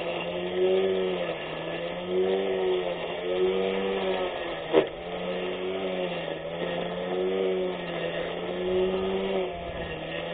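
24V brushless electric grass cutter's motor running, its pitch sagging and recovering every second or two as it takes the load of cutting grass. A single sharp click about halfway through.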